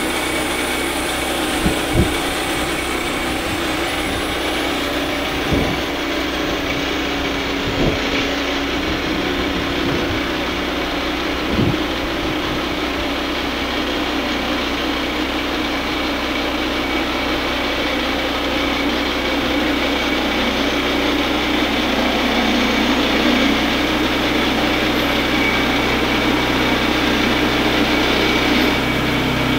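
Woodland Mills HM122 portable bandsaw mill sawing a jack pine log: its small gas engine running under load while the band blade cuts steadily. A few short low knocks come in the first dozen seconds, and the sound grows a little louder toward the end.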